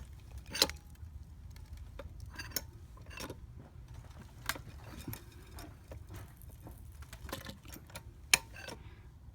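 Irregular crunching clicks and cracks from the patio structure as it is jacked up, the two sharpest about half a second in and near the end, over a steady low rumble.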